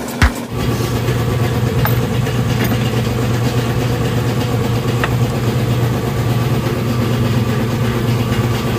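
A sharp knock at the start, then an engine or motor running steadily at idle with an even, low hum.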